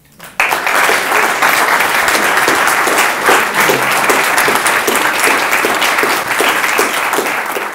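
Audience applauding: a room full of people clapping steadily, breaking out suddenly about half a second in.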